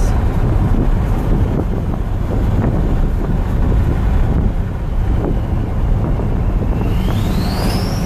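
Ford 6.0 Powerstroke turbo diesel with a KC 10-blade turbo, heard from inside the cab while driving: a steady engine and road drone, and near the end the turbo's whistle rises sharply in pitch as it spools up.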